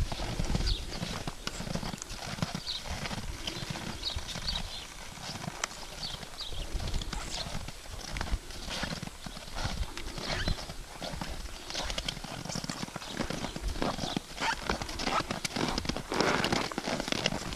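An American Paint Horse gelding walking on snow-covered ground, its hoofbeats coming in an irregular, continuous run of soft footfalls.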